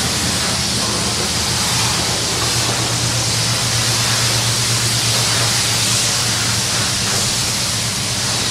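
High-pressure car-wash wand spraying water onto a car, a loud steady hiss, with a steady low hum underneath.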